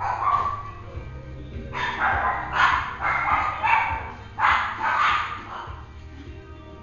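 Four-week-old Peekapoo puppy yipping and barking in a run of short, high calls.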